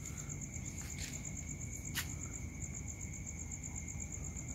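Night insects trilling steadily, a rapid high pulsing chirp with a second, lower steady tone beneath it, and a short click about two seconds in.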